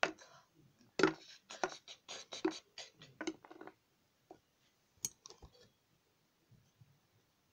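Dog treats being put into a plastic bottle and the bottle handled: a quick run of light clicks and taps, then a single sharper click about five seconds in.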